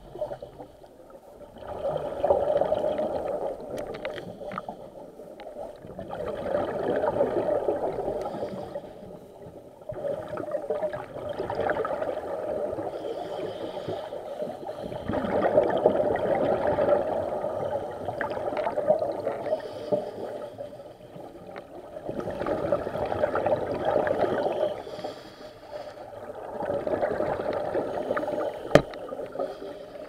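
Scuba diver breathing through a regulator underwater: rushes of gurgling exhaled bubbles that swell and fade about every four or five seconds. There is a single sharp click near the end.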